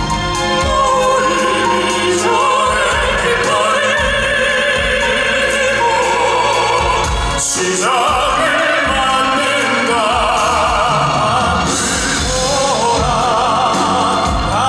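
Male crossover vocal group singing in an operatic style, with wide vibrato on sustained notes over instrumental accompaniment, with a brief break about halfway through.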